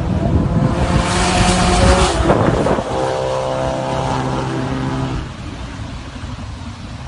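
A vehicle engine held at steady revs, with a loud rushing noise over it from about one to three seconds in. The engine note cuts away about five seconds in.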